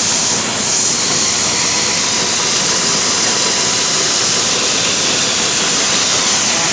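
Corn silage harvesting machine running steadily: a loud, even machine noise with a strong hiss over it.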